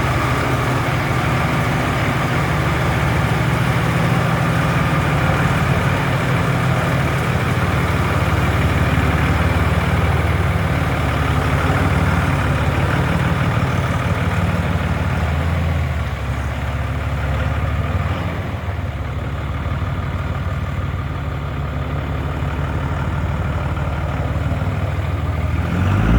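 2003 Dodge Ram's Cummins diesel engine idling steadily, a little quieter from about 16 seconds in, running again after its steering arm was refitted.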